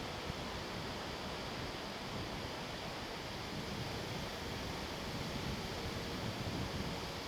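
Wind blowing: a steady rushing noise with an uneven rumble of gusts on the microphone.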